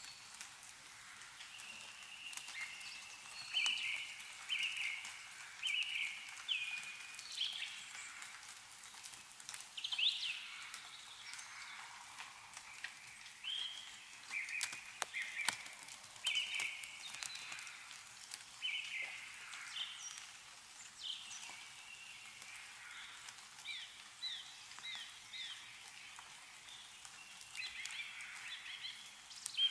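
Small songbirds chirping in short, repeated notes, with scattered drips of melting snow falling from trees.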